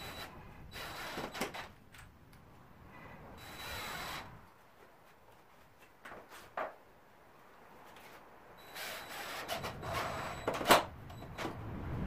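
A cordless drill-driver runs in several short spells of about a second each, along with wooden knocks and scrapes on the window frame; the sharpest knock comes near the end.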